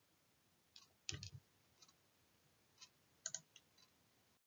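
Near silence broken by a few faint, scattered clicks, with a soft knock about a second in; the sound cuts to dead silence just before the end.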